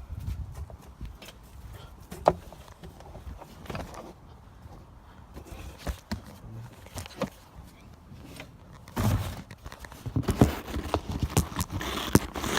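Handling noise close by: scattered knocks and clicks, a sharp knock about two seconds in, then denser clatter and rustling from about nine seconds on.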